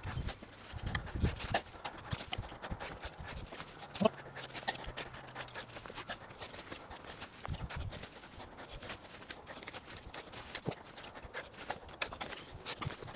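Irregular light knocks and scrapes from digging through loose soil and gathering potatoes by hand, with one sharper knock about four seconds in.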